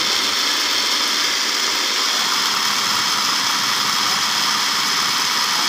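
Small electric food chopper running steadily, grinding fried peanuts, shallots, chilies and garlic into satay sauce paste.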